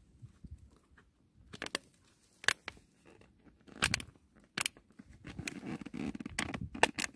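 Empty plastic bottle crackling and crunching in the hands, with rope rustling against it, as it is knotted onto the line as a float: a run of sharp, irregular cracks that come thicker in the second half.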